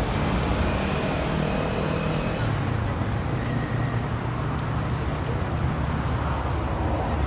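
Steady road traffic in a city street.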